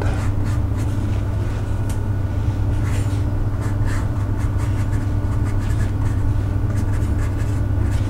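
A watercolour brush rubbing and scrubbing on paper in a few soft, short strokes, over a steady low electrical hum.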